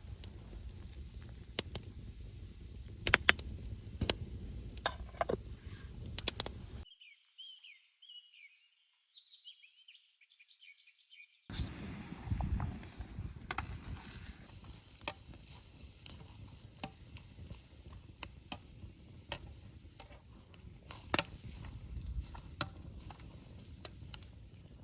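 Outdoor camp-cooking sounds: scattered clicks and knocks over a low rumble. In the middle comes a quiet stretch of a few seconds with only a few bird chirps.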